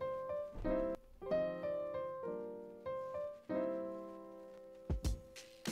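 Background music: piano chords struck one after another, each left to ring and fade, with a few sharp percussive hits near the end.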